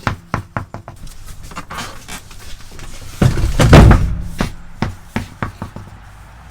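Irregular knocks and clunks as tires are handled and pulled out of a pickup's bed cap, with one heavy thud about three seconds in.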